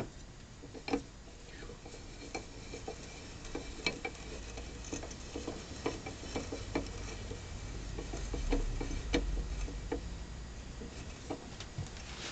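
Irregular metallic clicks and light clanks as a rusty Craftsman bench vise is unscrewed and taken apart by hand. A low rumble swells for a couple of seconds past the middle.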